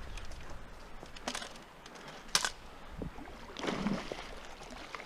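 A few sharp knocks and clicks, the loudest about halfway through, and a short rush of noise a little later: the handling of fishing gear while a hooked musky is fought on rod and reel.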